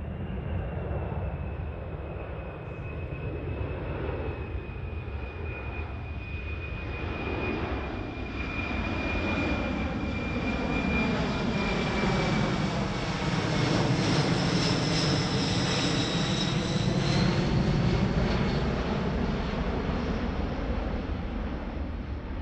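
A Boeing C-17 Globemaster III's four turbofan jet engines on a flyby: a steady rumble with a high whine that drifts slowly down in pitch. It grows louder to a peak about two-thirds of the way through, then fades.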